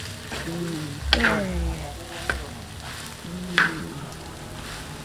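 Crumbly tiwul and scrambled egg frying in a dark pan while a spatula stirs and scrapes through it, with three sharp knocks of the spatula against the pan about a second apart.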